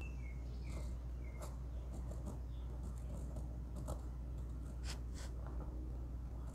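Fine-tip pen scratching in short strokes on a wooden lure body as a name is written, over a steady low hum. A few brief high squeaks in the first second or so.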